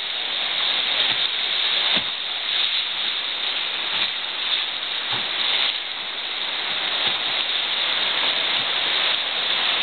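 Steady rush of river rapids around a small boat, with a few soft knocks.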